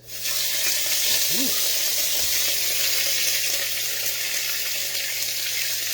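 Lamb chops sizzling loudly in a hot skillet of olive oil. The sizzle starts suddenly as the meat goes into the pan and then holds steady.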